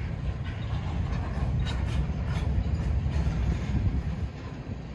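Covered hopper cars of a freight grain train rolling past, a steady low rumble with a few sharp clacks from the wheels in the first half. The rumble eases a little near the end.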